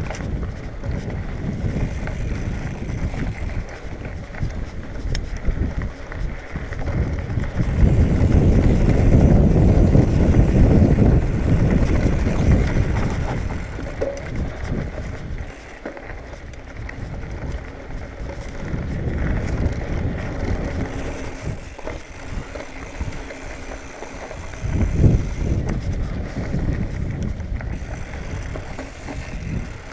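2019 Marin Bobcat Trail 5 hardtail mountain bike rolling over dirt singletrack: steady tyre rumble with wind buffeting the microphone. It grows louder about eight seconds in for several seconds and again briefly near twenty-five seconds.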